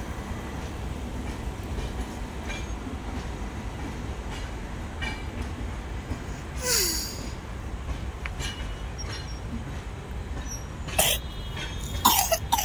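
Indian Railways passenger train running past with a steady low rumble of coaches on the track. A brief noisy burst comes about seven seconds in, and a few sharp clanks near the end.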